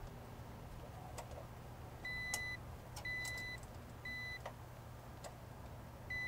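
Digital clamp meter beeping as its test leads read live line voltage: four short, high-pitched, steady-pitch beeps, each under a second, the first about two seconds in and the last near the end, with a few light clicks in between over a low steady hum.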